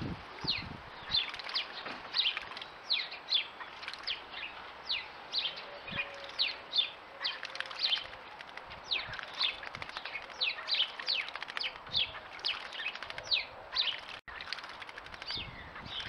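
A small bird chirping over and over: short, sharp notes, each falling in pitch, about two or three a second.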